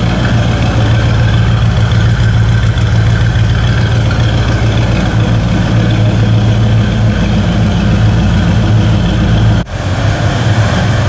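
A 350 cubic-inch GM V8 crate engine idling steadily with a low, even rumble. About ten seconds in, the sound breaks off for a moment and then carries on.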